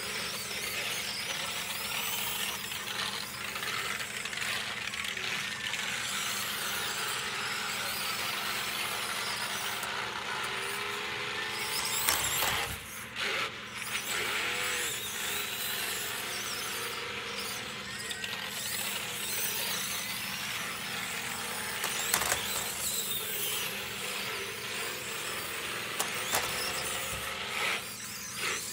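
Small electric motor and gearbox of a 1/24-scale SCX24 RC monster truck whining as it drives on carpet, the pitch rising and falling with the throttle, with a few sharp clicks.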